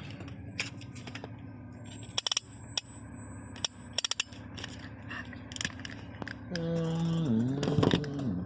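A vehicle engine runs with a steady low hum, with sharp clicks and rattles. About six and a half seconds in, a louder pitched tone slides down in pitch for a second or two and then stops.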